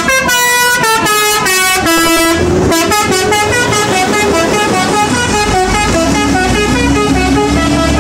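A coach's multi-tone musical 'telolet' horn playing a quick run of changing notes over and over, with the bus's engine rumbling underneath as it pulls away.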